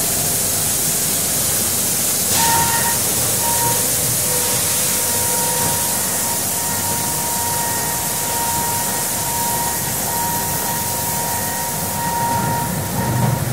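Exterior automated car wash running: a steady hiss of water spray, with a steady whine that comes in about two seconds in and holds on.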